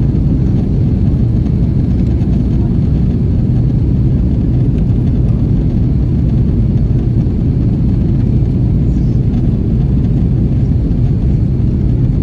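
Steady low roar of engine and airflow noise inside the cabin of an Airbus A330-300 airliner during its descent.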